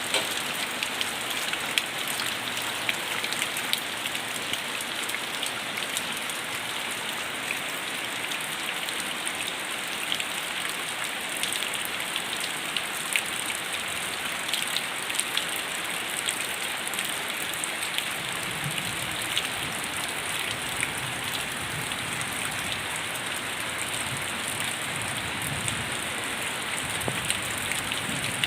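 Heavy rain pouring steadily, a dense hiss with individual drops ticking through it. A low rumble comes in about two-thirds of the way through.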